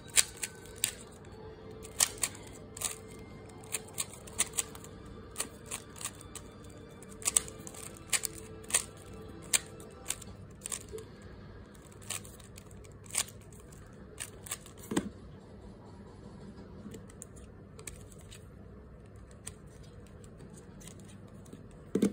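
GAN 3x3 speedcube being scrambled by hand: irregular sharp clicks of its layers turning, sometimes several a second, with short pauses between moves.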